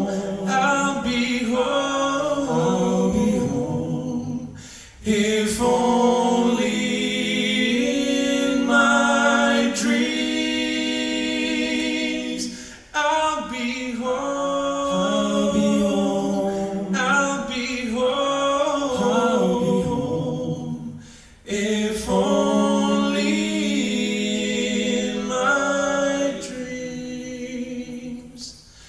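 A four-man a cappella quartet singing in close harmony with no accompaniment, in long phrases with short breaks roughly every eight seconds.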